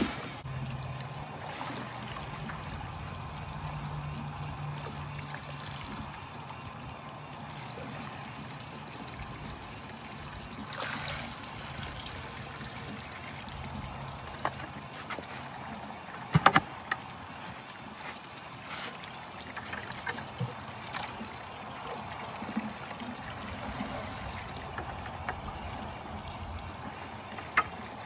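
Water trickling and splashing as a plastic bucket is dipped into and filled from a pool of muddy water. A low hum runs under the first dozen seconds, and a few sharp knocks come around the middle and again near the end.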